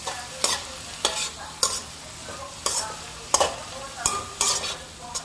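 Metal spatula scraping and tossing stir-fried shredded vegetables in a wok, about two strokes a second, over a steady sizzle. The vegetables are being cooked down until their moisture dries off.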